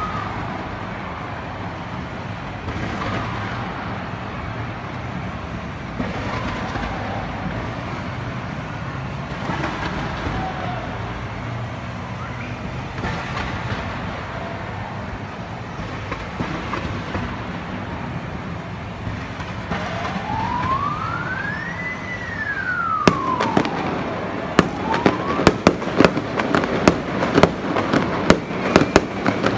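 Fireworks display: a steady noise of rising fountain and comet effects, then, from about three-quarters of the way in, a rapid run of sharp cracks and bangs as shells burst. Just before the cracking starts, a siren-like tone rises, falls and rises again.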